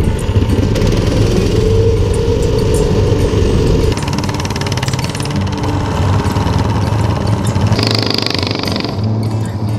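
Small single-cylinder Predator gas engines running at cruising speed on mini bikes, heard up close on board with wind rush. The engine note changes abruptly about four and eight seconds in, and a high hiss joins for about a second near the end.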